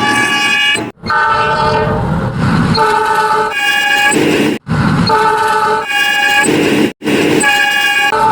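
Multi-tone train horn sounding in short blasts at changing pitches, spliced into a tune, with a low rumble between blasts. Abrupt cuts break the sequence about a second in, past halfway and near the end.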